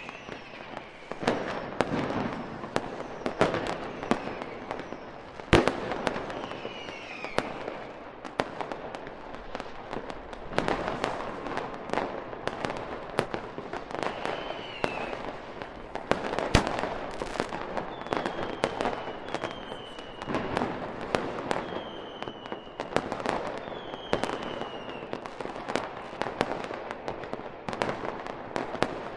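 Fireworks display: a dense run of bangs and crackling, with the two sharpest reports about six and seventeen seconds in. Short falling whistles come through now and then, four in a row in the last third.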